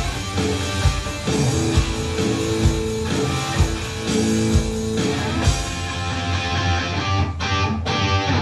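Electric guitar through a Friedman Small Box 50 amp playing a heavy rock riff, with an electronic drum kit keeping the beat. Near the end the band hits a few short, separate chord stabs.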